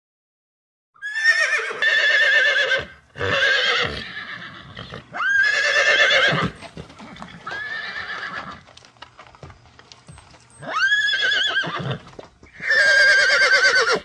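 Horses whinnying: about six loud neighs, each with a high, quavering pitch, following one another after a silent first second.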